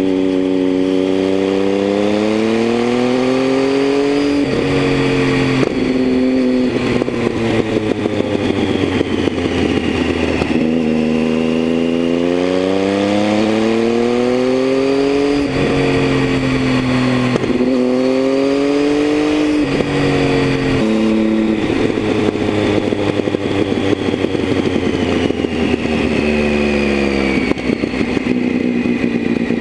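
Triumph Tiger 800's three-cylinder engine through an aftermarket Leo Vince exhaust, heard onboard while riding. The revs climb and fall repeatedly through the bends, with several sudden drops in pitch as it shifts gear.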